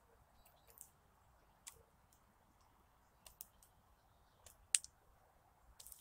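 Eurasian jay pecking at seeds on a wooden feeder board: irregular sharp clicks and taps of its beak on seeds and wood, the loudest one about three-quarters of the way through.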